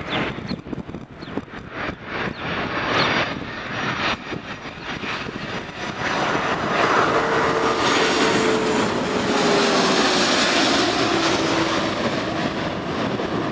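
Airbus A330-200 jet airliner on final approach passing overhead. The roar of its Rolls-Royce Trent 700 engines builds from about six seconds in and peaks near ten seconds, with an engine whine that falls in pitch as it goes past. Sharp crackles on the microphone in the first few seconds.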